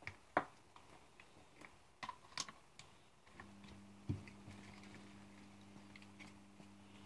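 Clicks and knocks of the homemade egg incubator being handled and switched on, then, about three and a half seconds in, a steady low electrical hum starts as the incubator's motor and fans power up, with one knock soon after.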